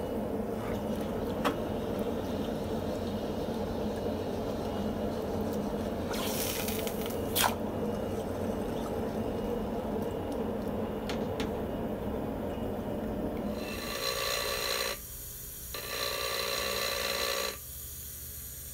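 A power tool's motor running steadily, then from about 14 s in a harsh, hissing grind of steel being worked on the tool, with a short break before it cuts off near the end. A few sharp clicks are heard in the first part.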